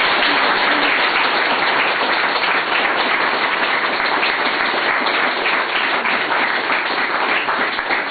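A small crowd of guests applauding, a dense, steady clapping.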